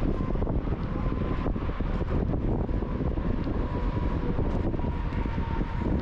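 Steady low rumble with wind buffeting the microphone, a faint steady high tone running through it.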